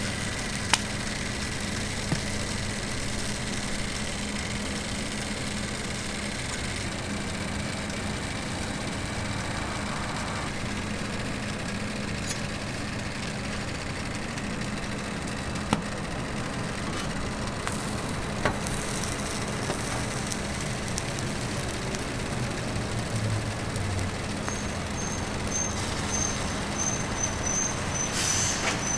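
Steady low hum of background machinery with a few light clicks, and a metal spatula scraping and tapping on a flat-top griddle near the end as the toast is lifted into place.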